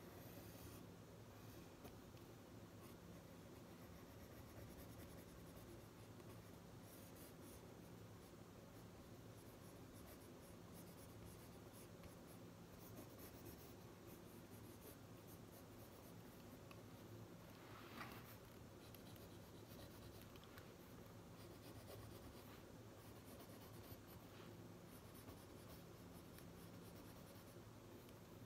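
Pen writing on paper in a spiral notebook, faint and scratchy, over a steady low hum. One short click comes about two-thirds of the way through.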